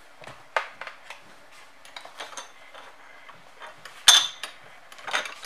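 Toy dishes and utensils from a children's play kitchen set clicking and clattering as they are handled, in a run of short, uneven knocks. The loudest knock comes about four seconds in.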